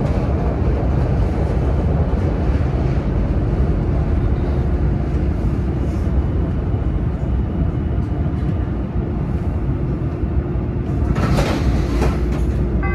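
Chicago CTA Brown Line "L" train running between stations, heard from inside the car: a steady low rumble of wheels on rail. About eleven seconds in comes a short spell of louder hissing clatter.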